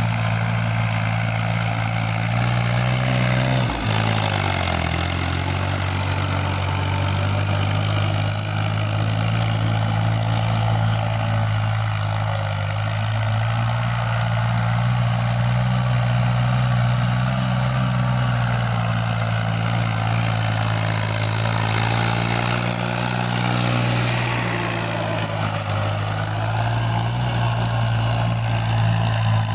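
Tractor diesel engine running steadily while working a field; its note drops briefly about four seconds in, then picks back up.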